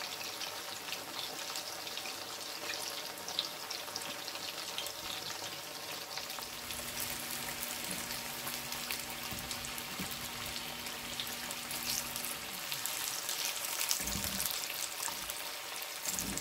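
Slices of boiled breadfruit deep-frying in hot oil in a stainless steel pot: steady sizzling, with fine crackling from the bubbling oil.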